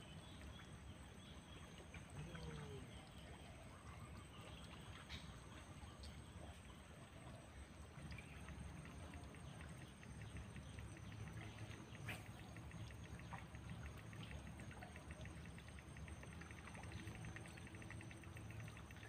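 Faint outdoor ambience: a low steady rumble with a few faint bird calls and a thin, steady high whine. A run of quick, faint ticking comes in the second half.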